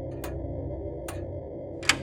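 Sampled Junghans grandfather clock ticking, three sharp ticks about a second apart with the loudest near the end, over a low, creepy ambient drone, the opening of a horror-style music piece made from the clock samples.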